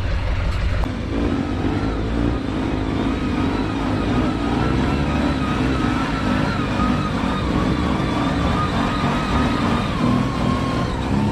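Off-road 4x4 vehicle engine running under load on a rough trail, its pitch rising and falling unevenly with the throttle.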